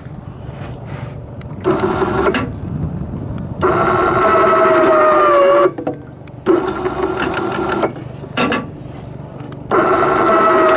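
SEA PRO electric anchor winch motor whining in five short runs, switched on and off in turn as it pays out the anchor rope. The pitch sags a little toward the end of the longer runs.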